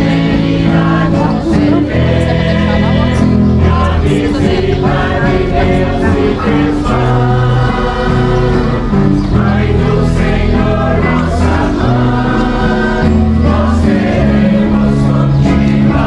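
Church hymn sung by a choir over instrumental accompaniment, with a bass line of held notes that step from one to the next.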